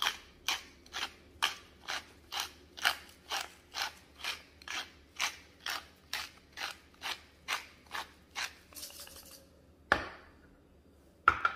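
Wooden pepper mill grinding black peppercorns: a crunching rasp with each twist, about two a second, for roughly eight seconds. Then a knock near the end as the mill is set down on the stone countertop.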